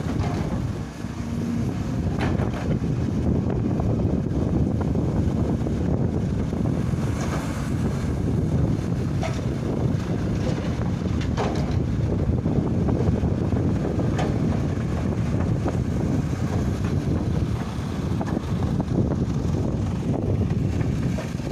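Diesel engines of earthmoving machinery (excavator and dump truck) running steadily, with wind buffeting the microphone and a few scattered knocks.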